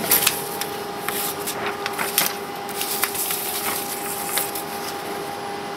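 HP LaserJet 9050dn laser printer running after feeding out an A3 page, printing normally with a new compatible toner cartridge: a steady hum with a faint constant tone. Short clicks and paper rustling come over it as the printed sheet is handled.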